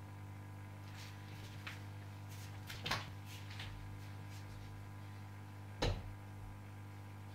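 Steady low hum of running aquarium equipment. Over it come a few short clicks and knocks between about one and three and a half seconds in, and a single louder knock about six seconds in.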